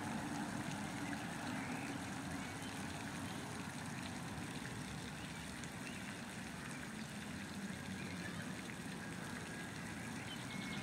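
Steady, even outdoor background noise with no distinct events such as duck calls or splashes.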